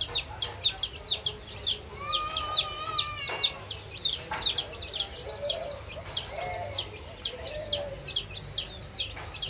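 A brood of baby chicks peeping nonstop: short, high peeps that slide downward, several a second and overlapping.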